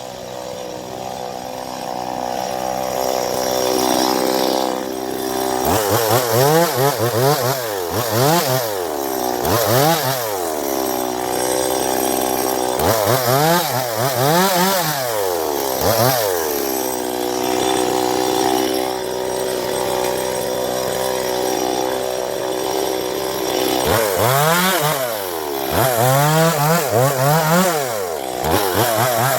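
Two-stroke chainsaw cutting a coconut palm trunk. Its engine note holds steady and grows louder at first, then about six seconds in it starts swinging up and down in pitch over and over as the chain digs in and frees, with a steadier high-revving stretch in the middle.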